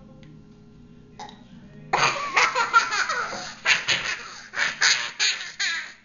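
A young girl laughing hard in repeated loud bursts, starting about two seconds in.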